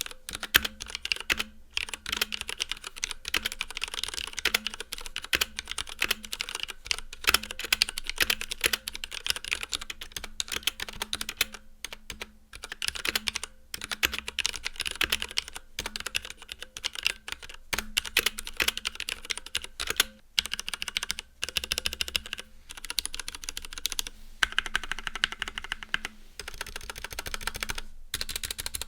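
Tada68 mechanical keyboard with Cherry MX Red linear switches being typed on steadily, a fast run of clacking keystrokes broken by a few short pauses.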